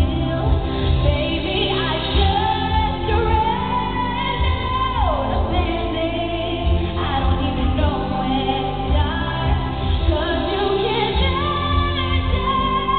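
Female pop singer singing a ballad live over instrumental backing, holding long notes; one held note slides down in pitch about five seconds in.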